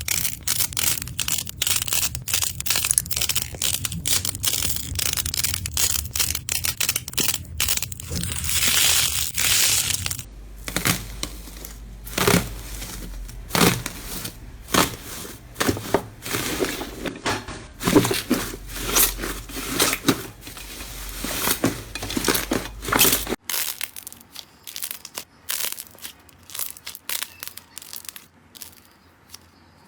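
Slime being squeezed, pressed and poked by hand, giving dense crackling, crunching and popping clicks. The sound changes abruptly twice, about a third of the way in and again near the three-quarter mark, and the last stretch is quieter with sparser clicks.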